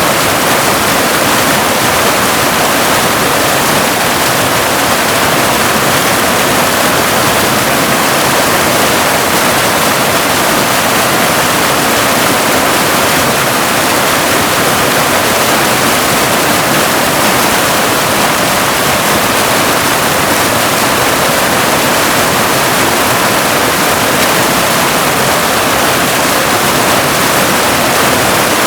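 Waterfall: a steady, unbroken rush of falling water, more hiss than deep rumble.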